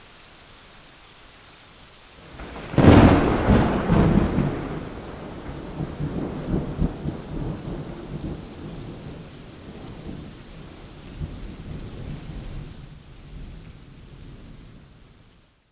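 Recorded thunderstorm: a steady hiss of rain, then a sudden loud thunderclap about three seconds in that rumbles on in uneven rolls, slowly fading, until the sound cuts off abruptly near the end.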